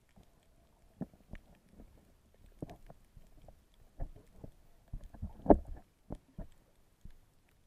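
Muffled, irregular knocks and thumps heard underwater through an action camera's waterproof housing as the snorkeler moves and handles it, the loudest about five and a half seconds in.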